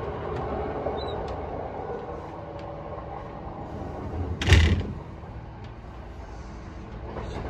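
Electric train carriage running noise: a steady low rumble inside the car, with one short, loud thump about four and a half seconds in.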